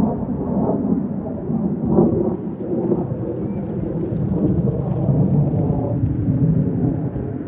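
Blue Angels F/A-18 Super Hornet jet engines heard from the ground as a loud, deep, ragged rumble while the jet flies its display.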